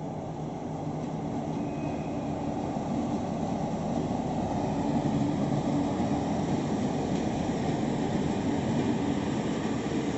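Two DB Class 218 diesel-hydraulic locomotives running past, their diesel engines droning steadily. The drone grows louder over the first few seconds as they come closer, then holds.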